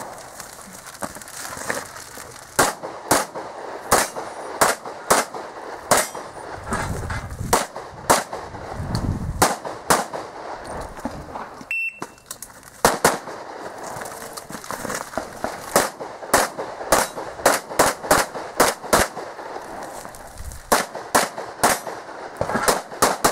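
Rapid handgun shots fired in quick pairs and strings during an IPSC practical shooting stage. About halfway through there is a short gap, then a single high electronic shot-timer beep, and a new string of shots begins.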